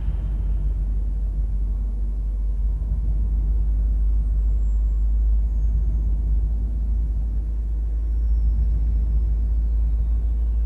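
Deep, steady electronic rumble from the room's sound installation, with a faint, thin high tone gliding slowly downward over it.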